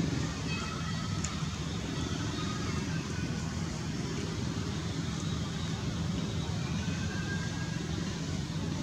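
Steady low outdoor rumble, with a few faint short high tones over it.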